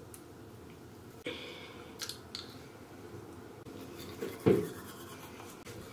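Small handling sounds of a toothpaste tube and toothbrush as paste is squeezed on, then soft repeated scrubbing of a toothbrush on teeth in the second half, with one short louder bump a little past the middle.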